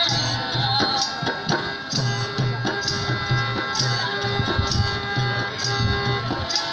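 Music with a steady drum beat and bright percussion strikes about twice a second over a sustained melody line.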